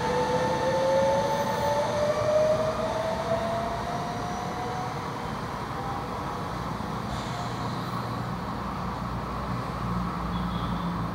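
Trenitalia Minuetto commuter train pulling out, its motor whine rising in pitch as it speeds up over the first five seconds and fading as it draws away, leaving a low steady rumble.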